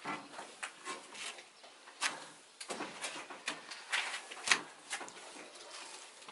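Irregular wooden knocks and clicks from a wooden tortilla press being handled and lifted open while corn tortillas are pressed and turned by hand.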